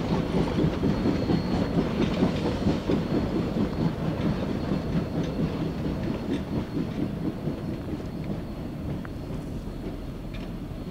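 Three-foot narrow-gauge boxcars and passenger coaches rolling past, their wheels clattering over the rail joints in a quick, uneven rhythm. The clatter fades as the last coaches go by.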